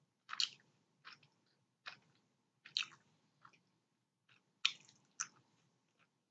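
A person chewing food close to the microphone: a run of crisp, crunchy chews, about one every second.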